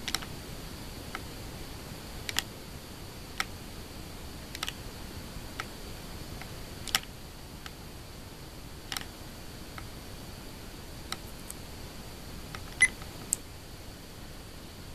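Key presses on the keypad of a Gakken GMC-4 4-bit microcomputer kit make about fifteen short, sharp clicks, spaced irregularly, over a steady faint hiss. The loudest comes near the end.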